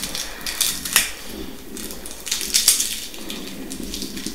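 Small sharp clicks and plastic crinkling from a battery and its clip-on connector being handled in the fingers.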